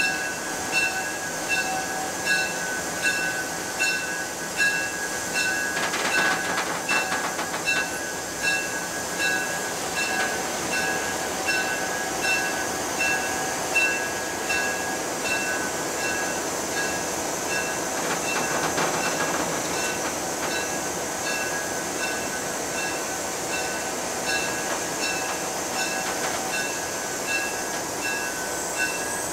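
Inside a locomotive cab as it rolls slowly along yard track, with the locomotive running steadily. A ringing strike repeats about twice a second, and there is a brief clatter several seconds in.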